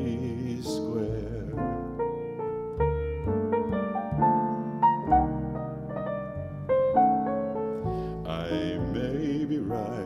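Piano and upright double bass playing a slow jazz ballad between sung lines, the piano picking out single melody notes over walking bass notes. A male voice comes back in near the end.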